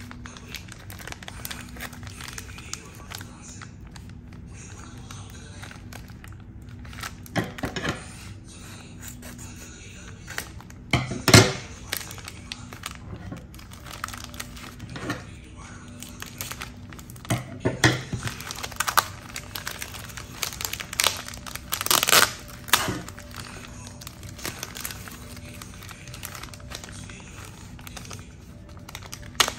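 Clear plastic zip bag of small craft gems being handled and torn open: plastic crinkling with several sharper tearing rustles, the loudest about a third of the way in. Soft background music runs underneath.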